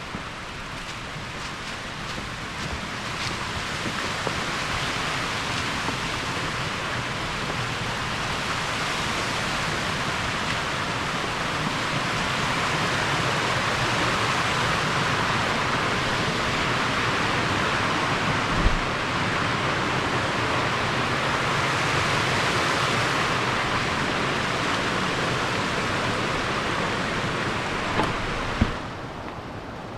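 Steady rushing of a waterfall, growing louder over the first dozen seconds and then holding, with a couple of faint knocks; it drops away sharply just before the end.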